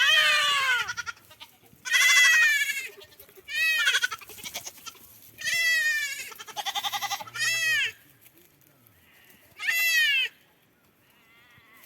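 Goats bleating: about six separate calls a second or two apart, each rising and falling in pitch, one with a quavering, stuttered tone around the middle.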